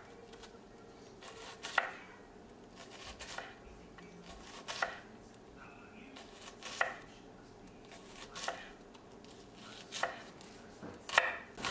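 A hammered-finish chef's knife chopping onion on a wooden cutting board: separate knocks of the blade on the wood, about one every second and a half.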